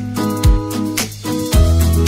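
Background instrumental music with a steady beat about once a second under held bass and chord notes.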